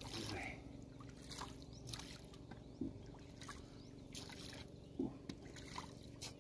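Faint water sloshing and trickling around a small boat, with scattered short knocks and splashes, over a steady low hum.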